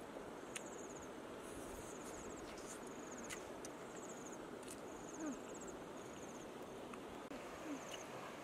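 Insects chirping in short high-pitched pulsed trains, roughly one a second, over a steady outdoor hiss. A few sharp clicks and two brief low sounds that drop in pitch stand out, the louder one about five seconds in.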